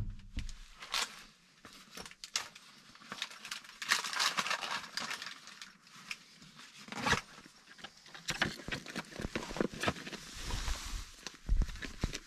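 Footsteps crunching in snow, uneven, with a few dull thumps.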